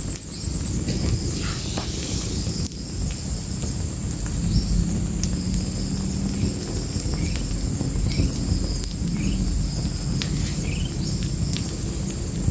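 Crackling fire ambience with sharp scattered crackles over a low rumble, while insects trill steadily behind it and a few short rising chirps sound.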